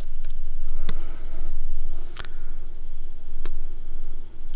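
Plastic Transformers action figures being handled and set in place: a few light plastic clicks and taps spaced out about a second apart, over a steady low hum.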